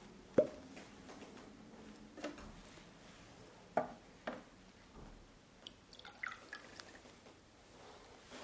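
Glassware clinking: a sharp clink with a short ring about half a second in, then a few lighter knocks as a bottle and glass beaker are handled. Near the middle a run of small drips and trickles follows as red cabbage indicator liquid is poured into the beaker.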